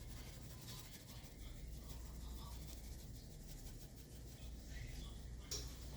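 Faint scratchy rustling and fine pattering as raw chicken wings are seasoned by hand, over a steady low hum.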